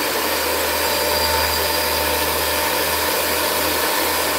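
Cuisinart electric hand mixer running steadily, its beaters whisking egg yolks and sugar in a glass bowl.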